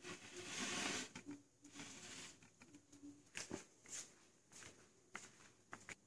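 Handling noise: a rustle lasting about a second at the start, then scattered light clicks and taps.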